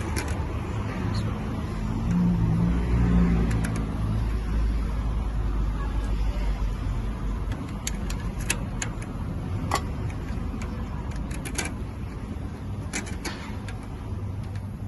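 Steady low mechanical hum of shop machinery, with a scattering of short sharp metal taps and clicks from about eight seconds in. The taps are hand tools working on the rear axle bearing retainer of a Ford E-350.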